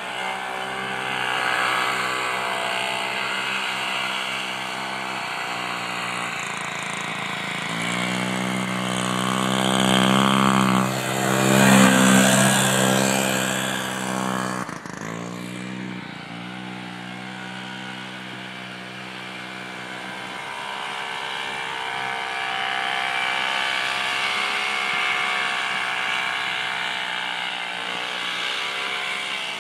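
Vintage snowmobile engines running over snow. One sled comes up close and is loudest about twelve seconds in, then its pitch drops sharply as it pulls away around fifteen seconds; a more distant sled engine drones on after that.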